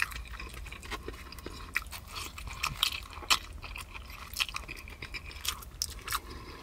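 A person chewing food close to the microphone, with many short, irregular mouth clicks and smacks.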